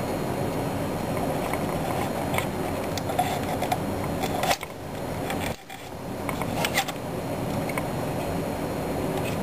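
Steady background hum with a few light clicks and taps of plastic model parts as a small rubber drive belt is stretched onto the pulleys of a 1/6-scale model engine. The hum dips briefly twice about halfway through.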